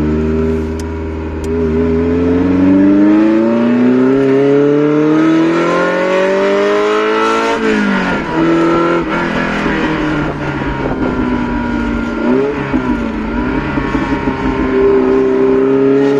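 Ferrari Mondial 3.2's V8 through a custom exhaust, heard from inside the cabin under acceleration. The engine note climbs steadily for about six seconds and falls sharply about halfway through. It then runs on at a lower, steadier pitch with small rises and dips.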